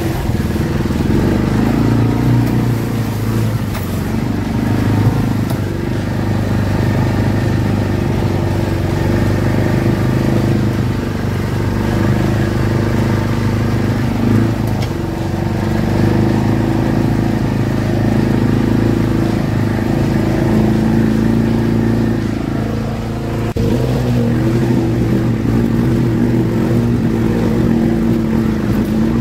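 Side-by-side UTV engine running steadily while it drives a rough dirt trail, heard from on board.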